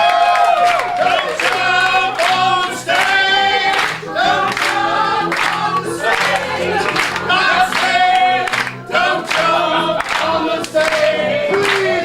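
A group of voices singing a gospel song with piano accompaniment, with sung notes held at length.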